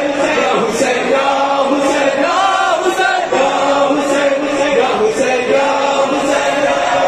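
Large crowd of male mourners chanting a noha together in long, held sung lines, many voices in unison.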